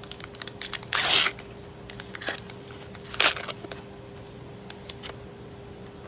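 Thin plastic crinkling and rustling as trading cards are handled: two short loud rustles, about a second in and again about three seconds in, among small ticks and clicks.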